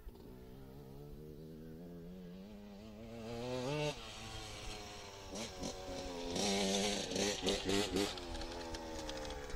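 Suzuki RM125 dirt bike's single-cylinder two-stroke engine being ridden: its pitch climbs steadily for nearly four seconds, drops off suddenly, then comes back louder in a choppy run of quick throttle blips for a couple of seconds near the end.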